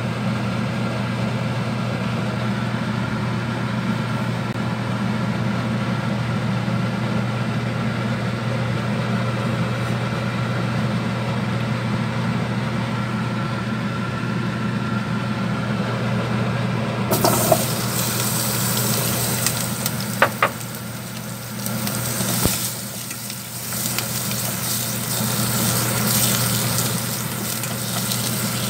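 Cubed Korean radish tipped into a hot pot, starting to sizzle about two-thirds of the way through, with a few knocks as pieces land. A steady electrical hum runs underneath.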